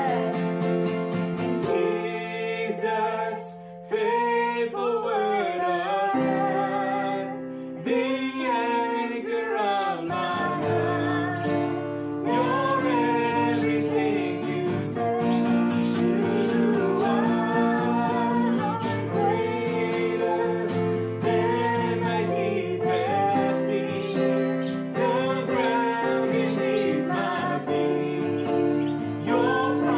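A man and a woman singing a worship song together, accompanied by a strummed acoustic guitar and a Roland keyboard.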